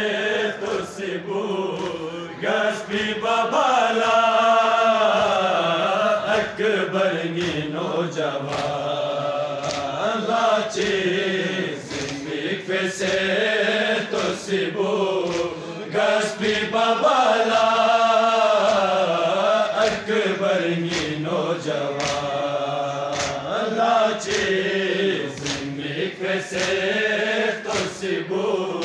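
A group of men chanting a Balti noha, a Muharram lament, together. Under the chant runs a steady beat of hands striking chests (matam) about once a second.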